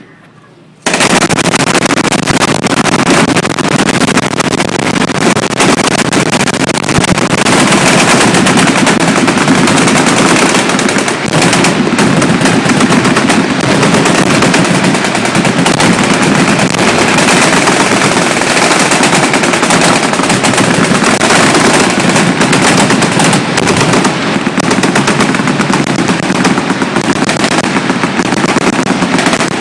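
Many machine guns firing at once in sustained automatic fire, starting abruptly about a second in and going on as a dense, unbroken roar of shots.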